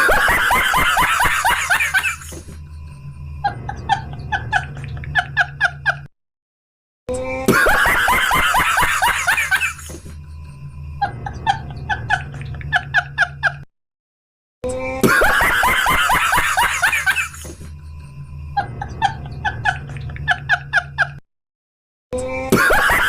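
A looped sound clip heard three times with short silent gaps: each pass opens with about two seconds of laughter-like voice sound, then a run of quick, evenly spaced chirps over a low hum.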